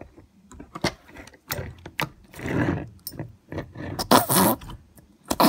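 Slime being pushed and squeezed into a plastic container, squelching with fart-like air-pocket noises in several short bursts, the loudest about four seconds in, with small clicks from the container.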